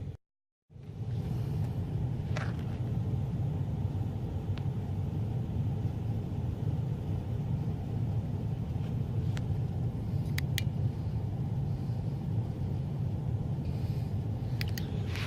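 Steady low rumble of an HVAC air handler's blower running, with a few faint clicks. The sound cuts out for a moment just after the start.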